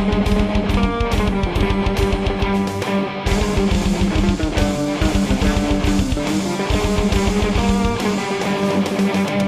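Electric guitar and drum kit playing an improvised rock jam: held guitar notes and a moving melody over steady drum strokes, the deepest bass thinning out near the end.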